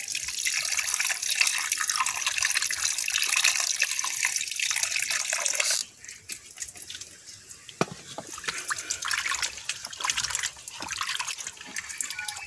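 Water running from a hose into a metal bowl while raw snakehead fish pieces are rubbed clean by hand. The flow cuts off suddenly about six seconds in, leaving quieter splashing and wet handling of the fish in the water.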